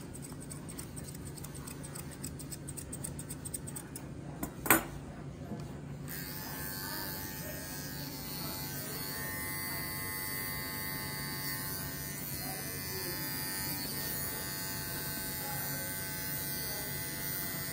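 Grooming scissors snipping through a dog's coat, a single sharp clink about five seconds in, then a cordless dog-grooming clipper switches on about six seconds in and runs steadily as it trims the ear.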